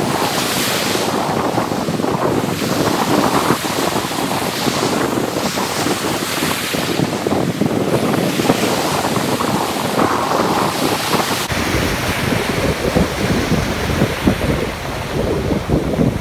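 Ocean surf breaking and washing in rough water, with wind buffeting the microphone. The low wind rumble grows stronger about two-thirds of the way through.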